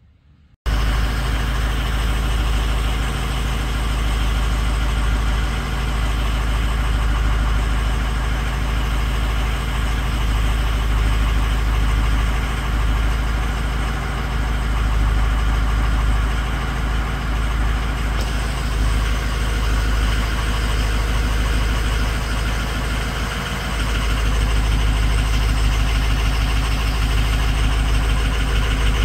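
Ford 6.0 Power Stroke V8 turbodiesel idling steadily with a bad number 6 injector. It cuts in suddenly about half a second in, dips briefly about 23 seconds in, then runs a little louder.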